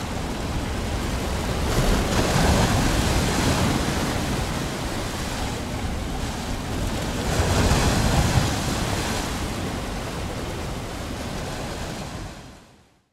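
Ocean surf breaking and washing over rocks, a steady rush that swells louder twice, about two and eight seconds in, then fades out near the end.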